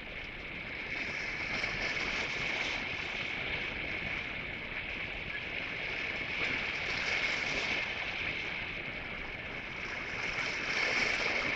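Sea waves breaking and washing over the rocks of a breakwater, a steady rushing noise that swells a little near the end, with a constant high-pitched hiss running through it.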